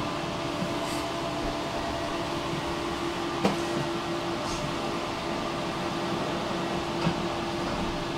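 Steady hum of a tram heard from inside, holding one constant tone, with a sharp knock about three and a half seconds in and another about seven seconds in.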